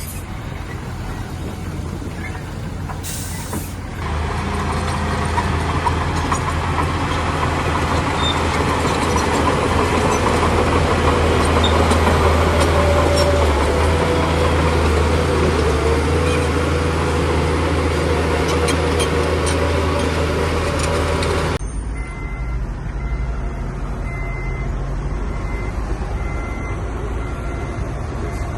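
Bulldozer's diesel engine running, with a short hiss about three seconds in. From about four seconds the engine is louder, under load, with a harsh grating noise over it. Near the last quarter this stops abruptly and a quieter steady run follows, with a faint repeating high beep.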